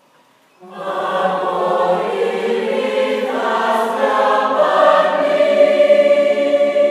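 Youth choir singing a sustained chord, coming in suddenly about half a second in and ending on a long held note.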